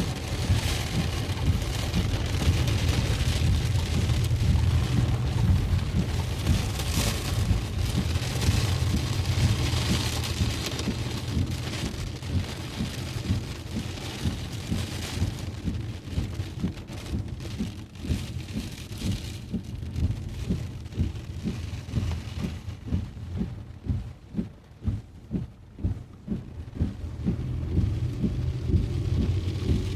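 Heavy rain falling on a moving car, over a steady low rumble of engine and road. After about fifteen seconds the even wash of rain thins into many separate drop impacts, then thickens again near the end.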